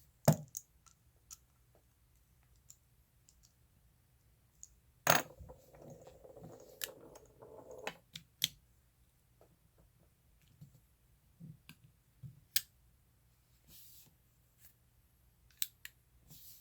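Folding knife being worked open and shut by hand: scattered sharp metal clicks of the blade and liner lock, with a loud snap about five seconds in followed by a few seconds of gritty scraping from the freshly reassembled, unlubricated pivot.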